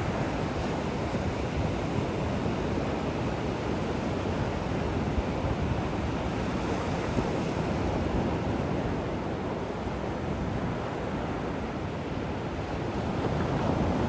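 Ocean surf crashing on a beach: a continuous wash of breaking waves, easing a little about two-thirds through and building again near the end as another wave breaks.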